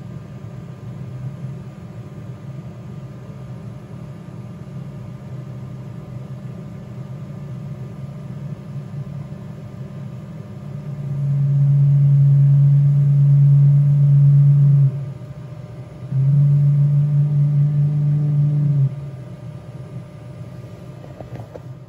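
Metal powder-bed 3D printer machinery running with a steady low hum while the printed part is raised out of the stainless-steel powder bed. The hum swells much louder about halfway through, drops back for a moment, then comes back loud for a few seconds before easing off near the end.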